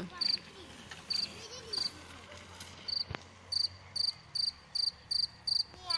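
A cricket chirping in short, high pulses, a few scattered chirps at first, then a steady run of about three chirps a second.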